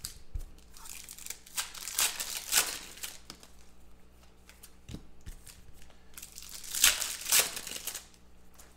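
Foil trading-card pack wrappers crinkling and tearing open as packs are opened and the cards handled. The rustling comes in two louder spells, about two seconds in and again around seven seconds in.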